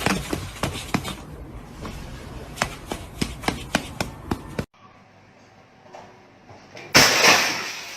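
Irregular sharp knocks and clatters for about four and a half seconds, then a quiet stretch and a sudden loud crash near the end that fades away over about a second.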